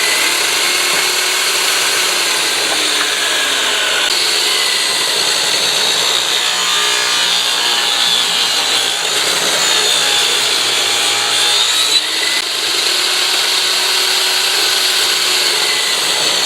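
A power tool cutting wood, running loudly and steadily, its pitch wavering slightly now and then as it works through the stock.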